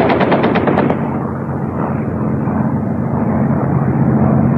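Rapid machine-gun fire that stops about a second in, followed by the steady drone of an aircraft engine.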